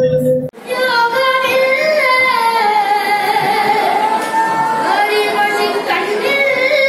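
A solo voice singing a Malayalam folk song (nadan pattu) in long, drawn-out notes that slide up and down in pitch, with no drums behind it. It comes in right after a sudden break about half a second in.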